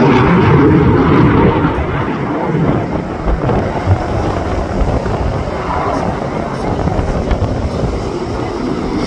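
Fighter jet's engines during an air display: a loud rushing noise that is strongest in the first second and a half, then eases off to a lower, steadier level.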